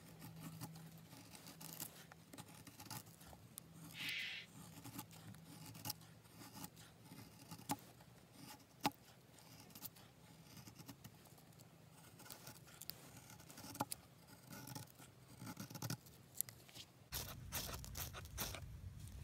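Scandi-grind O1 tool-steel bushcraft knife shaving curls down a dry stick to make a feather stick: a run of short scraping strokes of the blade along the wood.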